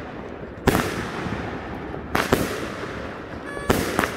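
Consumer aerial fireworks cake firing: five sharp shots in uneven spacing, one early, then two close pairs, each trailing off in an echo.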